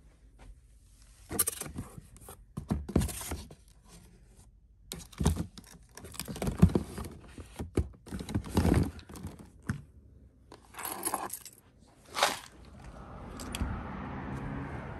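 Plastic lotion bottles clattering and knocking together in repeated bursts as a hand rummages through a basket of them. Near the end the clattering stops, a door opens, and steady outdoor background noise comes in.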